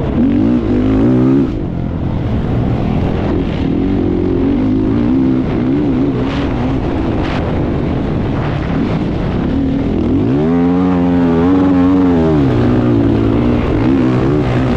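A racing vehicle's engine running hard, its pitch repeatedly climbing and dropping with throttle and gear changes, including a long climb about ten seconds in that falls away two seconds later.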